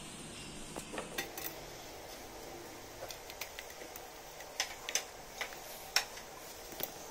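A serving utensil clinking and scraping against a steel pan and plate as cooked okra sabzi is dished out, in scattered light clicks over a quiet background.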